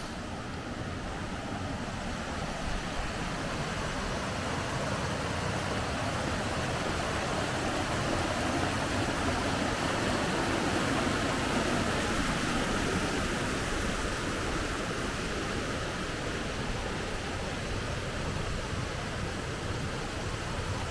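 Rushing water of the Kibune River, a steady hiss that swells louder toward the middle and eases off a little again.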